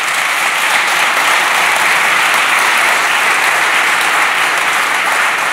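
Audience applauding: loud, steady clapping.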